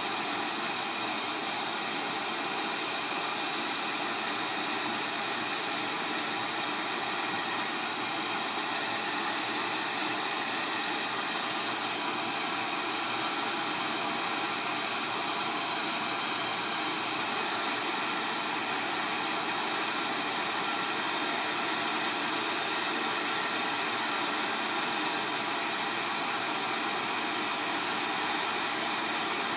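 Hot-air heat gun blowing steadily on high, a constant rush of air, as it heats a phone board's charger port to melt the solder holding it.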